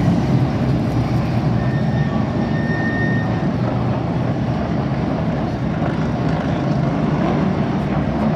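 Steady drone of several late model stock car V8 engines circling an asphalt oval, heard together from the grandstand.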